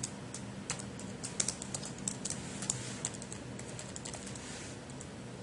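Typing on a computer keyboard: irregular key clicks, densest in the first three seconds and thinning out about four seconds in.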